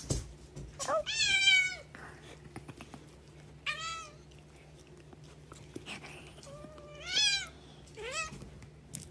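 A cat meowing four times: the first call long and wavering, the later ones shorter.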